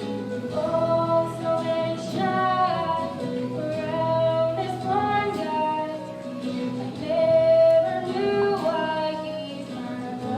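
Musical number: a woman singing a slow song with long held notes over instrumental accompaniment.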